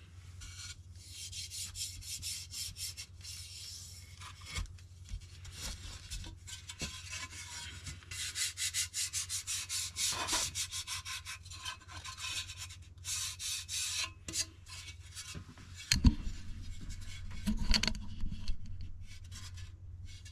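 Hands rubbing a sticker down onto a motorcycle windshield in many quick dry strokes, then a sharp knock near the end and some clunks as the windshield is picked up and turned. A steady low hum runs underneath.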